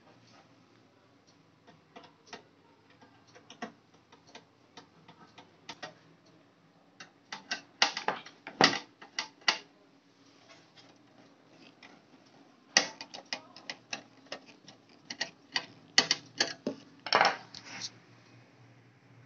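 Sharp clicks and light metallic knocks from handling a Dahua DVR and its sheet-metal cover. They come singly at first, then in quick, louder clusters about eight seconds in and again from about thirteen to eighteen seconds.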